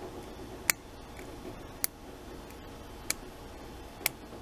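Four sharp clicks about a second apart as the latches on a 9-pin D-sub cable connector are worked between the unlatched and latched positions.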